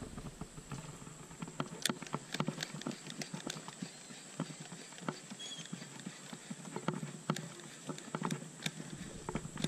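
Irregular light clicks and knocks of a baitcasting reel and rod being handled, several a second and uneven in spacing.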